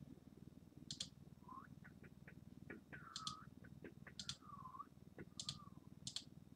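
Near silence with a few faint, sharp computer mouse clicks, and several faint short squeaks in between.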